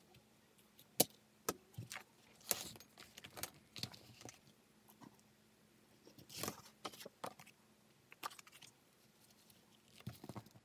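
Workbench handling sounds while a pattern is marked out on crocodile leather: scattered sharp clicks and knocks of steel pattern weights and a steel ruler being set down, the loudest about a second in, with a few short rustles of paper and leather sliding on a cutting mat.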